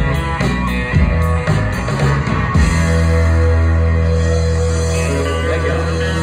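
Live rock band with electric guitars, bass guitar and drum kit playing: a run of drum hits with the band for the first couple of seconds, then a held chord ringing steadily from about two and a half seconds in.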